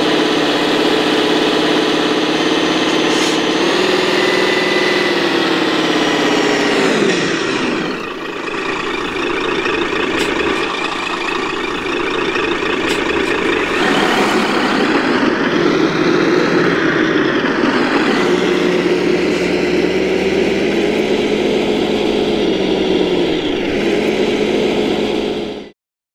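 Simulated diesel truck engine sound from an RC 8x8 truck's onboard sound module, rising with throttle about four seconds in and falling back about seven seconds in. It then runs steadily again and cuts off suddenly near the end.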